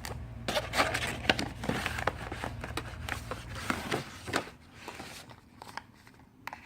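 Crinkling and rustling of plastic and foil beauty-mask packaging being handled, with irregular crackles that are busiest in the first four seconds and thin out after.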